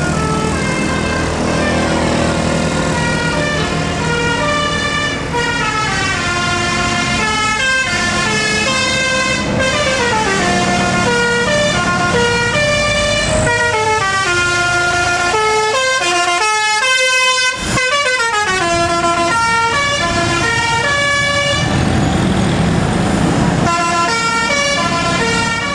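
A tour bus's telolet basuri horn, a multi-tone bus horn, plays a long melody of quick stepping notes, many in falling runs, over the bus engine. The notes break off briefly about two-thirds of the way through, then resume.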